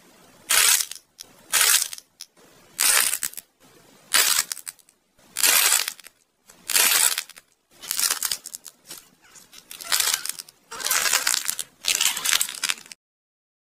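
A dried-clay imitation corn cob being broken and squeezed in the hands, crunching and crumbling. The crunches come as about ten separate bursts and stop suddenly near the end.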